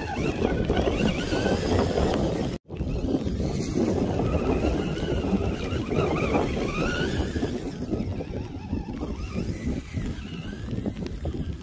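FTX Kanyon RC crawler's electric motor and gears whining, the pitch rising and falling with the throttle, as its tyres churn through mud and splash through water, over a constant low rush of noise. The sound cuts out for a moment about two and a half seconds in.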